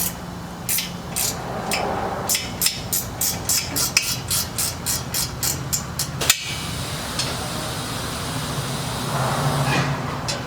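Hand ratchet wrench clicking rapidly on metal, about four clicks a second, starting about two seconds in and stopping abruptly after about four seconds, as exhaust header fasteners are worked loose. A steady low hum runs underneath.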